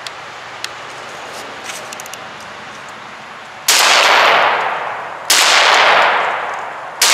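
VSA-ST Gen 2 semi-automatic shotgun firing full-power buckshot: after a few faint clicks, three shots come about a second and a half apart, starting about halfway in. Each shot is followed by a long echo that fades away.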